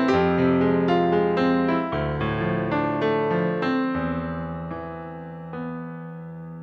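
Piano playing the closing bars of a slow jazz arrangement: a run of notes over low sustained chords, then a last chord struck about five and a half seconds in that rings and fades away.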